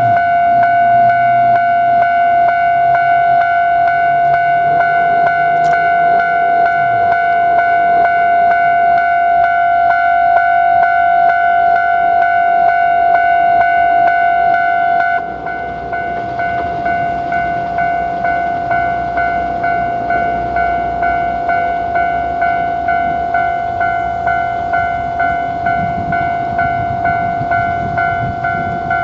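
Japanese railway level-crossing alarm ringing its repeated electronic 'kan-kan' bell, a steady high ringing tone pulsing in an even rhythm; it drops a little in level about halfway through. Near the end a low rumble starts to build beneath it as a train approaches.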